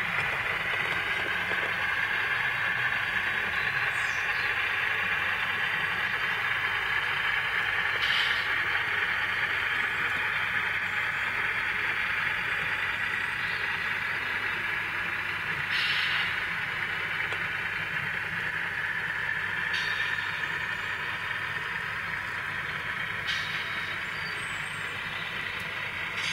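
Model train running: the steady rolling noise of a string of model hopper cars on the track, with the diesel engine sound from the ScaleTrains locomotive's onboard sound decoder. A few brief clicks sound along the way.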